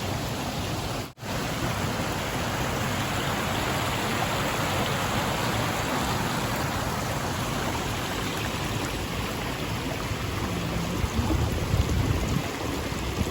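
Waterfall rushing steadily, the sound cutting out sharply for an instant about a second in. Low wind gusts buffet the microphone near the end.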